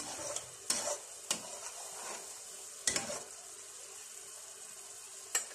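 Coconut milk reduced to latik, its curds sizzling and frying in the separated coconut oil in a pot, with a steady high sizzle. A metal slotted spoon stirs and scrapes against the pot about five times.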